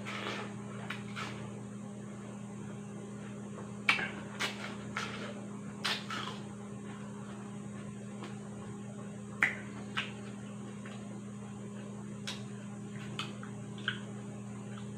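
Close-up eating sounds of a person biting and chewing juicy watermelon: a scattering of short, wet crunches and slurps with pauses between them, over a steady low hum.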